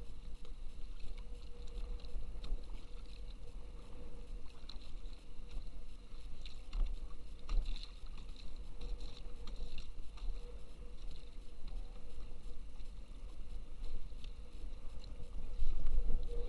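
Wind buffeting the microphone over small waves lapping against a kayak hull, with scattered light clicks, growing louder near the end.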